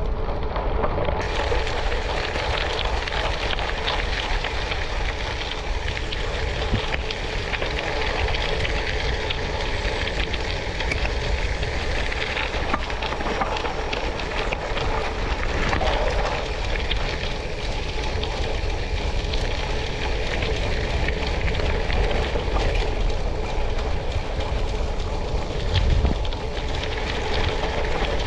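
Tyres rolling over gravel: a steady crackling, crunching noise with a heavy low wind rumble on the microphone, and a brief louder jolt near the end.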